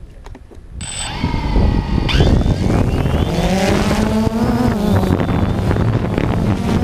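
DJI Phantom 2 quadcopter's four electric motors starting about a second in with a brief high beep, then spooling up. The propeller whine climbs and wavers in pitch as the drone lifts off, then runs steadily. It is heard up close from the GoPro mounted on the drone.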